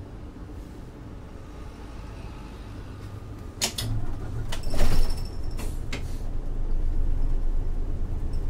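City bus doors working, with clunks and a loud hiss of air about halfway through. Over the low running of the Isuzu Erga's 6HK1-TCC diesel engine, which then grows louder with a pulsing note.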